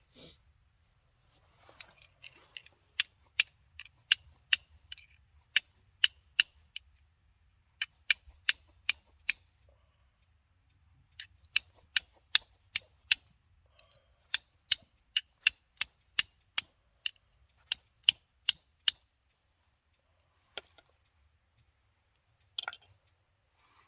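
Sharp, regular taps or strikes, about two to three a second, in four runs with short pauses between them.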